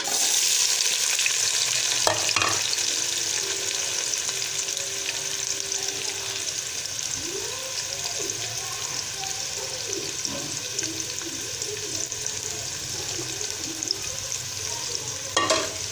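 Chopped onions dropped into hot cooking oil, frying with a sizzle that starts suddenly and slowly eases. A steel ladle knocks against the pan a few times about two seconds in and again near the end.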